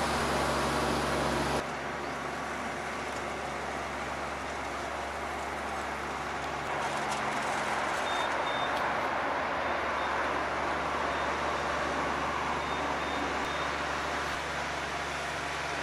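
Kubota tractor's diesel engine running steadily under load while its rotary disc tiller turns the soil. About one and a half seconds in, the sound changes abruptly from a pitched engine hum to a steadier rushing noise.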